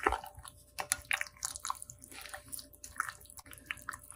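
Wooden spatula stirring chicken pieces through a thick yogurt-and-spice marinade in a glass bowl: soft, irregular wet squelches and light clicks.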